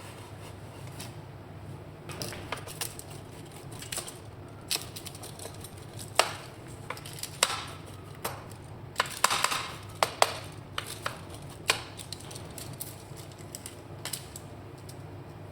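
Kitchen utensils clinking and knocking in irregular sharp clicks, busiest in the middle, over a steady low hum.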